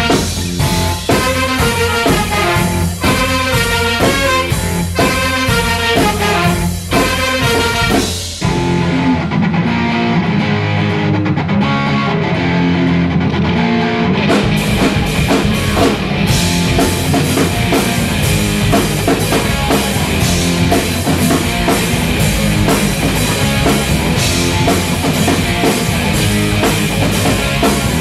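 Live band music: trumpets play short rhythmic hits over bass and drums. About eight seconds in, it breaks down to an electric guitar playing a riff alone. About six seconds later the drum kit and the full band come in with a rock groove.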